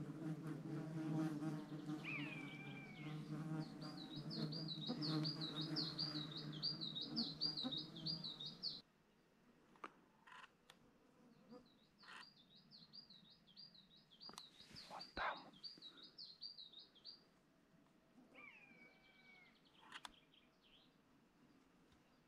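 A songbird singing a fast, repeated warbling phrase, with a short slurred whistle before it. An insect buzzes close by for the first nine seconds or so, then cuts off abruptly, leaving the song fainter with a few light clicks and one short sharp sound about fifteen seconds in.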